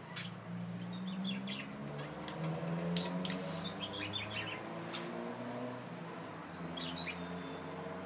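A pair of pet budgerigars chirping in short, scattered clusters of high notes, over a steady low hum.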